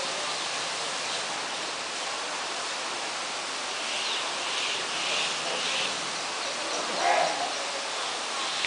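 Steady rushing hiss of water at an open-air bathing tank, with a few faint high chirps midway and a brief louder sound about seven seconds in.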